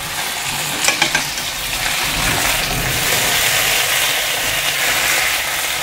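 Diced potatoes sizzling steadily in hot oil in a non-stick frying pan as they are turned with a plastic slotted spatula, with a couple of sharp knocks of the spatula on the pan about a second in. This is the turning stage of frying Bratkartoffeln, once the underside has begun to brown.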